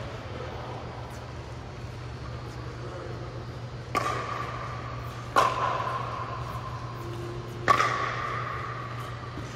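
Three sharp pings, the first about four seconds in, then a second and a half and two seconds apart, each ringing at one steady pitch and fading over a second or so, over a steady low hum.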